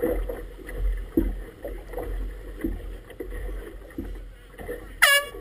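Choppy river water slapping against a moored inflatable boat's tube in irregular splashes, over a low wind rumble on the microphone. About five seconds in, a short, loud pitched tone sounds once, bending in pitch.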